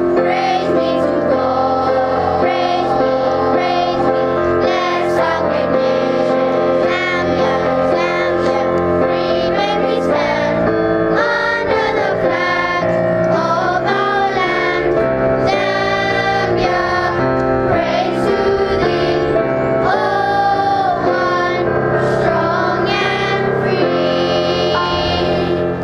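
A group of children singing together over an instrumental accompaniment.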